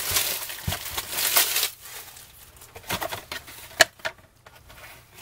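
Cellophane shrink wrap crinkling as it is crumpled off a cardboard trading-card box, then a few light taps and one sharp click about four seconds in as the box flap is opened and the foil packs are handled.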